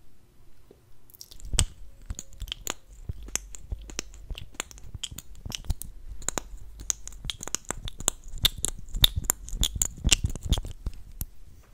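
Wet ASMR mouth sounds: rapid, irregular lip smacks and tongue clicks. They start about a second in and come thickest near the end.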